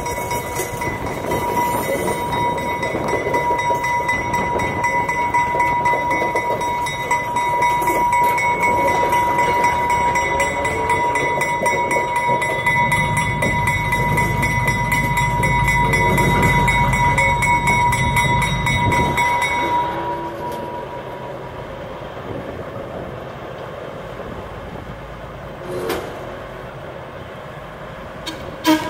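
1948 GE 25-ton diesel switcher locomotive running and moving along the track, with a steady high whine over the engine rumble. The rumble is loudest and deepest for several seconds in the middle. The whine stops and the engine sound falls away about two-thirds of the way through, and a couple of sharp knocks come near the end.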